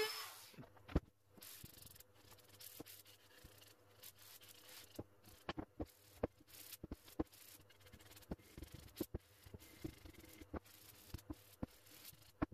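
Hand sanding a wooden block with a sanding block: quiet, irregular rubbing strokes with light taps and knocks as the block is worked.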